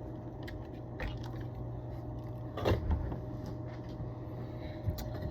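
Steady low electrical hum with a few light clicks and knocks, as parts of a fuse box are handled on a workbench.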